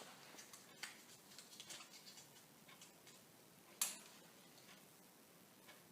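Faint, irregular crackling of a freshly lit wood fire in a fireplace, with one sharper pop about four seconds in.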